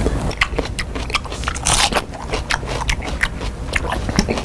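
A person eating loudly on purpose: biting and chewing with a quick run of sharp, crackling crunches and smacks, and a longer noisy smear of mouth sound just under two seconds in.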